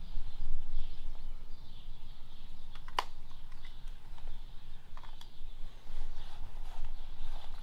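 Outdoor ambience: a steady low rumble with faint, scattered bird chirps, and one sharp tap about three seconds in followed by a couple of lighter ticks about two seconds later.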